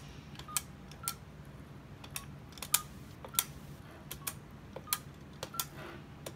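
Buttons of a stainless-steel payphone keypad pressed one after another while dialling a number, each press a sharp click, several with a short faint beep.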